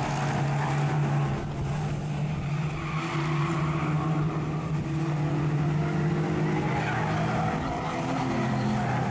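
Several small race car engines running together as the field laps a short oval, their notes rising and falling as the cars accelerate and lift around the bends.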